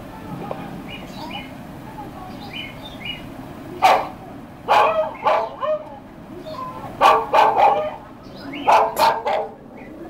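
A dog barking: faint short yaps at first, then loud, sharp barks in quick clusters of two or three from about four seconds in.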